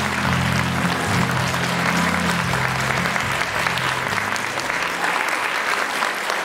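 Audience applauding. The low notes of the song's accompaniment run underneath and end about four seconds in.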